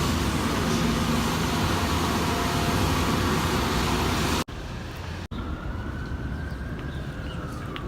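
Loud, dense road traffic noise. After two short breaks it turns quieter, and a siren sounds, its pitch rising slowly and then falling.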